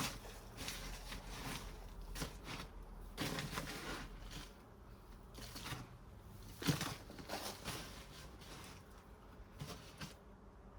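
Hands digging through soil in a potato grow bag, making irregular rustling and scraping handling sounds.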